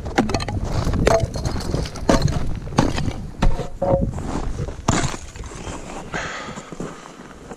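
Footsteps crunching and squeaking on snow and ice at an uneven walking pace. Wind buffets the microphone at first and dies away near the end.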